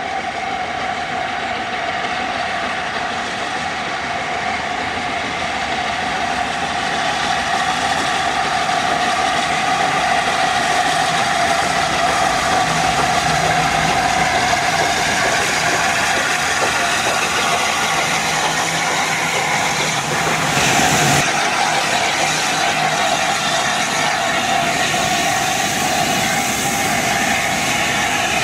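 An LNER A4 Pacific three-cylinder steam locomotive hauls a passenger train past under steam. The working engine and the rolling carriages make a steady, dense noise that grows louder about a quarter of the way in.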